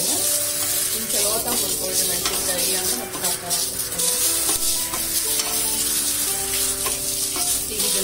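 Green chillies sizzling as they fry in hot oil in a kadai, stirred and turned with a wooden spatula.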